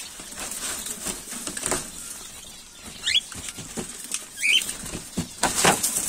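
Light clattering and scraping of a thin homemade aluminium-sheet cage tray being handled, with a louder scrape near the end. Birds flutter in the cage and give two short rising chirps a second or so apart.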